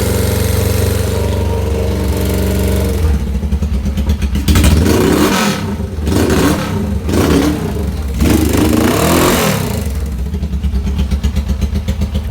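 Twin-cylinder motorcycle engine idling, then revved in several short blips and let fall back to idle. It makes a weird noise that persists despite new spark plugs, clean carburettors and freshly adjusted valves.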